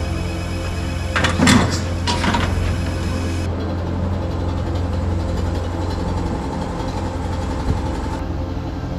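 Narrow-gauge saddle-tank steam locomotive running slowly: a steady low hum with two short hissing bursts of steam about one and two seconds in.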